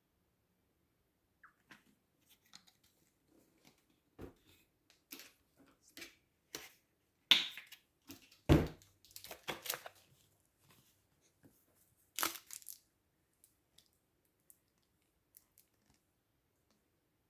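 Crinkly wrapping being torn and crumpled by hand: a run of short crackles and tears, with two loud sharp ones about seven and eight and a half seconds in and another about twelve seconds in, then only a few faint ticks.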